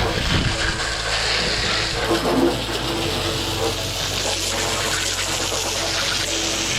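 Steady rush of spraying water over background music with held bass notes.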